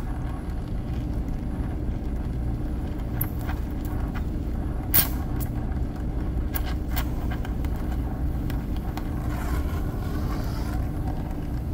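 Steady low roar of a brazing torch flame sealing the cut, pinched-off end of a copper refrigerant liquid line, with a few light clicks.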